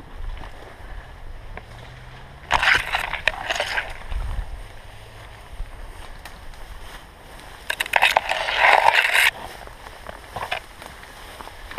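Tall grass and brush swishing and rustling against the camera and clothing as people push through on foot, in two loud bursts: one about two and a half seconds in, and a longer one near eight seconds in.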